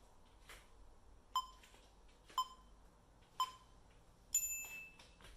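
Workout interval timer counting down: three short beeps a second apart, then a longer, higher beep marking the end of the rest period.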